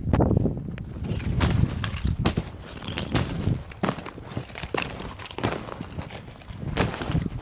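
Footsteps on ice-glazed ground after freezing rain: a sharp step roughly every second, over a steady low rumble.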